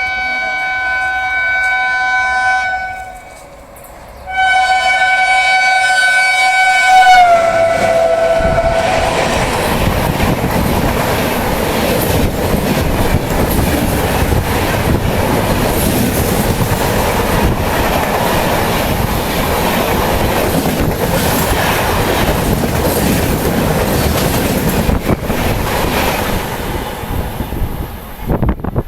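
WAP7 electric locomotive's multi-tone horn sounding two long blasts, the second sliding down in pitch as the locomotive passes close by. Then comes the loud, steady rush of the passing trains for about twenty seconds.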